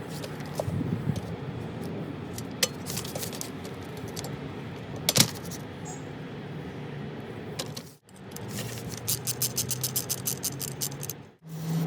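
Small metal fan parts clinking and knocking as the fan is handled and taken apart, with a fast run of clicks about three quarters of the way in.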